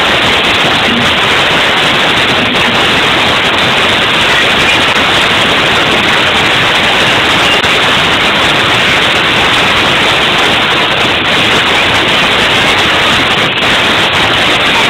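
Loud, steady static-like noise of a packed party crowd, with no single voice or music standing out.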